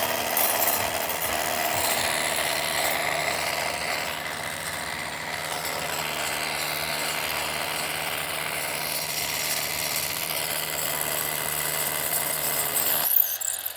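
Hammer drill boring into concrete, running steadily for about thirteen seconds and cutting off abruptly near the end.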